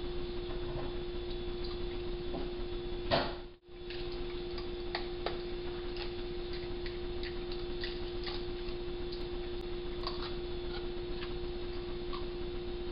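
Trail camera audio: a steady electronic hum with scattered light clicks and taps from raccoons feeding at metal and plastic cat-food bowls. About three seconds in, a short burst of noise and a brief dropout mark the join between two camera clips.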